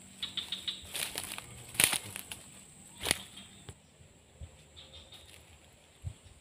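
Close rustling with a run of small clicks, and two sharp knocks about two and three seconds in; it then dies down to faint background noise.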